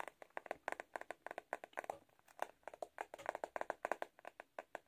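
Fingernails tapping on the back of a plastic Tangle Teezer hairbrush: quick runs of light clicks, several a second, with a short pause about two seconds in.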